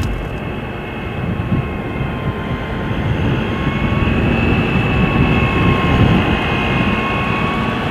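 Heavy military truck running as it drives slowly along a dirt track: a steady, loud low rumble with a faint whine above it.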